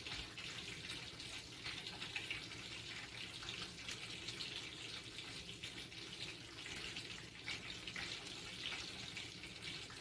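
Kitchen knife cutting into a crisp green apple on a bamboo cutting board: quiet scraping and crunching strokes over a steady background hiss.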